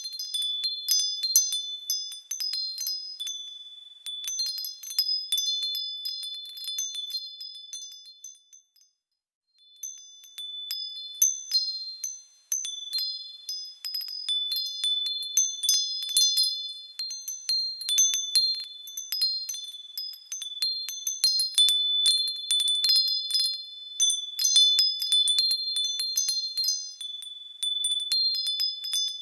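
Small high-pitched metal wind chimes tinkling, many overlapping ringing tones struck at irregular moments. The chiming drops out for about a second roughly a third of the way through, then resumes.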